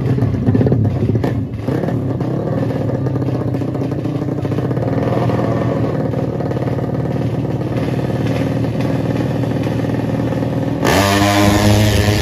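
Drag racing motorcycle engines running and revving loudly. About eleven seconds in, a louder engine cuts in abruptly and rises in pitch.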